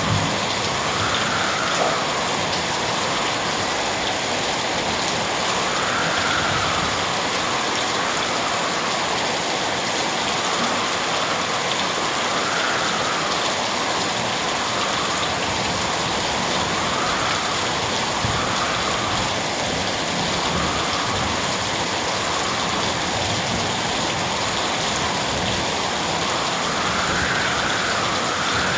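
Steady rain falling, an even hiss with a gentle swell and ease every couple of seconds.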